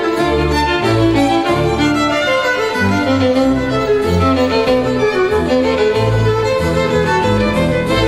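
Background music: bowed strings (violin-like melody over cello and bass) playing sustained notes, with the low bass changing note about every second.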